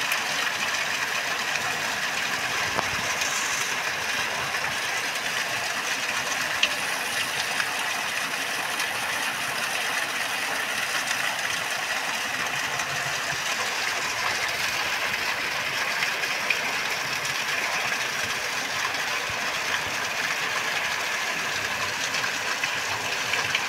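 Heavy tropical rain pouring down steadily in a dense, even hiss, with one sharp click about seven seconds in.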